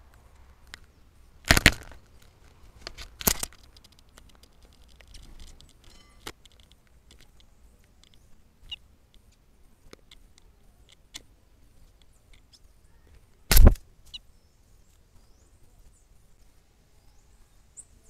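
Brazilian tanager striking the trail camera's housing as it fights its own reflection. Loud knocks come about a second and a half in, again near three seconds, and loudest about thirteen and a half seconds in, with light taps and scratches in between.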